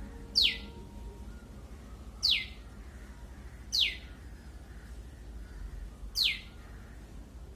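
A small bird giving four loud, sharp, high-pitched calls spaced a second or two apart, each a quick downward sweep.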